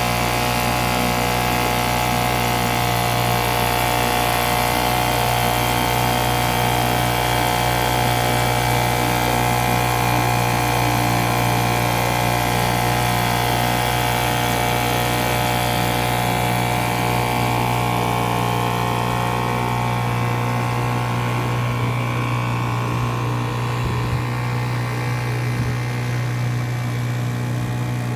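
British Seagull single-cylinder two-stroke outboard motor running steadily at full throttle. Its note holds one fixed pitch throughout, and the sound turns duller in the last several seconds.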